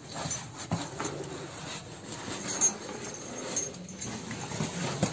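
Faint scuffs, small knocks and rustling of a person clambering through a narrow rock passage.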